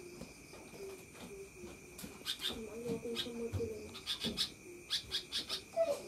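Sooty-headed bulbul calling in short clusters of quick, sharp chattering notes, with a low hooting note repeating several times a second underneath and a steady high-pitched whine throughout.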